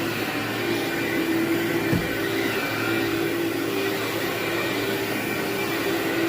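Vacuum cleaner running steadily with a constant motor hum, and a brief knock about two seconds in.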